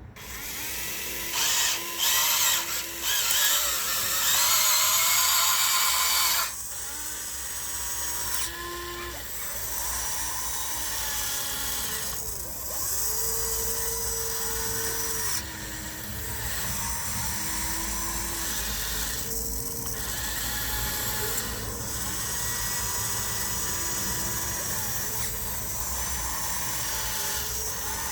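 Small electric motors of radio-controlled construction models whining, their pitch rising and falling as the controls are worked. The whine is loudest in the first six seconds.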